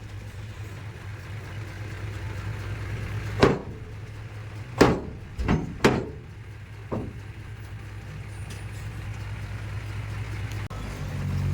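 Heavy diesel earthmoving machinery running steadily at a low pitch, with a few sharp metallic clanks or knocks between about three and a half and seven seconds in.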